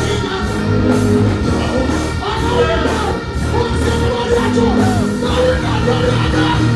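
Live band music with a male vocalist singing over it through the stage sound system.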